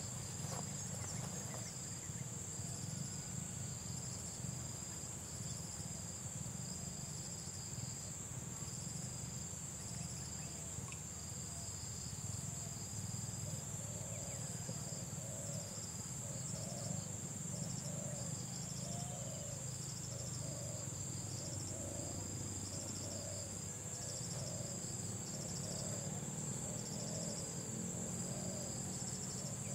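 Insects shrilling in a steady high drone, with a second insect call pulsing every second or so. A lower repeated chirp joins about halfway through, and a steady low rumble runs underneath.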